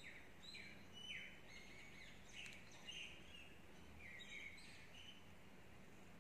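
Faint bird chirping: short, quick notes in small clusters, over a low steady hum.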